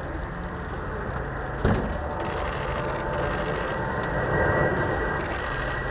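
Jet noise from the Airbus BelugaXL's twin Rolls-Royce Trent 700 turbofans as it flies past low and banking: a steady rushing noise, with a high fan whine coming in about four seconds in. A single sharp knock about a second and a half in.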